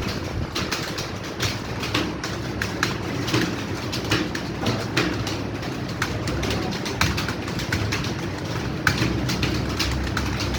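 Computer keyboards being typed on during a timed typing test: a fast, irregular patter of key clicks over a low steady hum.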